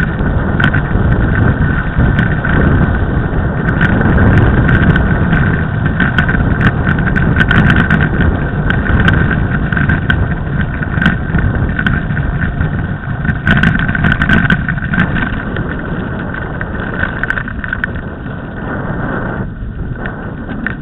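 Mountain bike rolling over a snow-covered track, heard through a bike-mounted camera's microphone: a continuous rumble of tyres and wind on the microphone, with frequent clicks and rattles from the bike and mount over bumps. It eases a little over the last few seconds.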